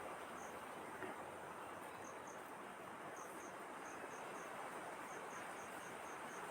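Faint insect chirping: short high pulses in runs of two to five, over a steady background hiss.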